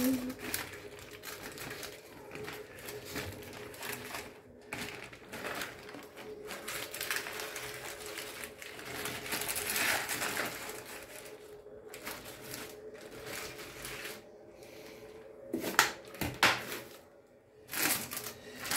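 Baking paper crinkling and rustling as a baked-fish parcel is torn open and folded back by hand, in irregular crackles, with a few louder ones near the end.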